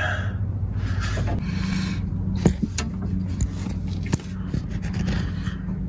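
Scraping and rubbing handling noise from a phone being moved about in a tight space, with a few sharp clicks in the middle, over a steady low hum.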